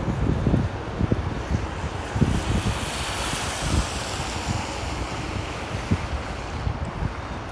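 Blizzard wind buffeting the microphone in uneven gusts, with a rushing hiss that swells and fades in the middle.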